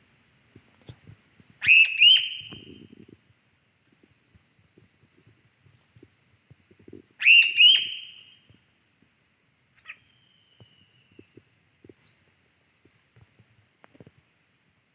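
A bird calling twice, loud and short: one call about two seconds in and another about seven seconds in, each a quick run of high notes, with a few fainter chirps later. A faint steady high hum runs underneath.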